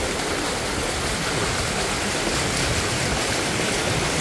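Steady rushing of floodwater covering a street, with rain falling on it.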